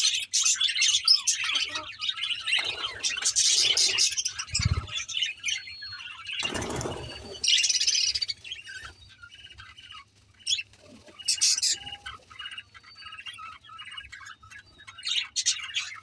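A flock of budgerigars chirping and warbling: busy chatter at first that thins to scattered chirps, with a brief rustle near the middle.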